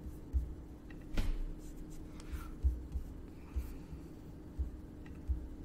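Computer mouse clicks picked up by a desk microphone: about seven soft, low thumps at irregular intervals, with a few fainter clicks, over a steady faint hum.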